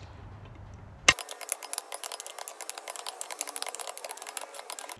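Ratcheting click-type torque wrench on the beadlock ring bolts: one sharp click about a second in, typical of the wrench breaking over at its 18 ft-lb setting, then a fast run of ratchet clicks as it is worked round the bolts.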